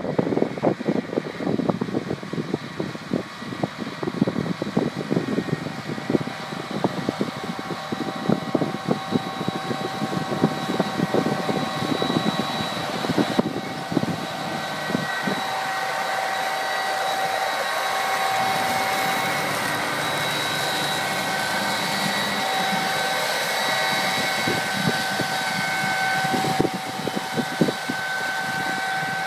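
John Deere tractor pulling a 24-row planter at work, its engine and machinery running steadily. A high steady whine grows stronger about halfway through as the rig passes close, and wind buffets the microphone in the first half.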